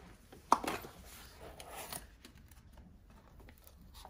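Cardboard product box being opened by hand: a sharp snap about half a second in as the flap comes free, then cardboard scraping and rustling, followed by a few light clicks and taps.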